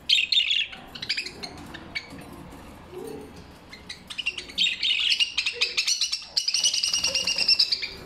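Caged budgerigars chirping and chattering in fast, high runs. A loud burst comes right at the start, then scattered chirps, then a dense stretch of rapid chatter through the second half.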